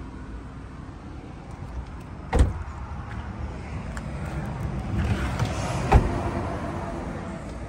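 A Rivian R1T's rear door shut with a sharp thump, then a second sharp thump about three and a half seconds later.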